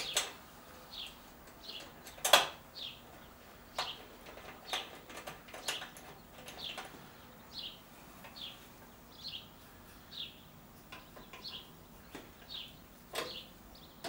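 Small metal clicks and knocks from Allen screws being driven into the chop saw with an Allen wrench, the sharpest about two seconds in. Throughout, a bird gives a short, falling, high chirp about once a second.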